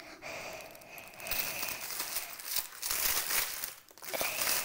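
Crinkly wrapping around an LOL Surprise ball being crumpled and pulled open by hand: a continuous crackling of wrapping material, with a short pause near the end.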